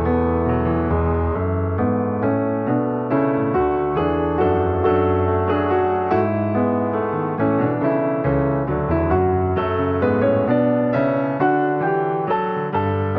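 Piano music: a continuous melody over chords, with notes struck in a steady flow.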